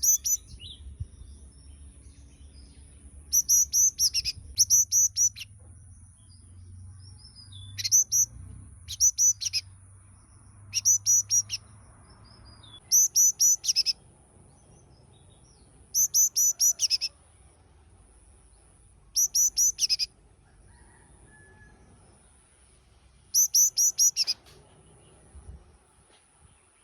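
Yellow-cheeked tit singing: short phrases of a few quick, high, ringing notes, repeated every few seconds.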